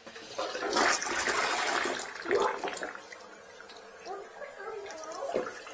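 Toilet flushing: a loud rush of water for about two and a half seconds, settling to a quieter steady flow. The bowl is draining freely now that a comb jammed in the drain has been pulled out.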